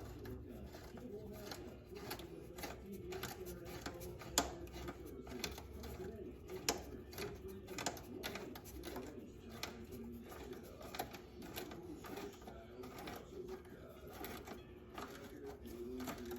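Irregular clicks and taps of hand work on an ATV's rear brake cable and its bracket at the rear drum, metal tapping on metal, with a couple of sharper knocks about four and a half and seven seconds in.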